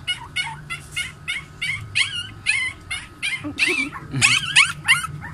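Week-old puppies crying: a rapid string of short, high-pitched squealing whimpers, about three a second.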